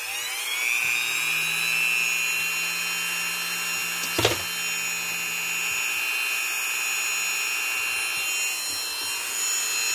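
Dremel rotary tool fitted with a cutting wheel, running at high speed: a steady high-pitched whine that comes up to speed at the start. There is one sharp knock about four seconds in.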